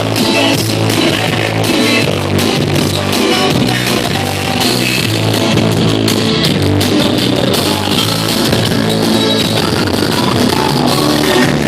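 Loud dance music played through a sonidero sound system, with a steady beat and a repeating bass line.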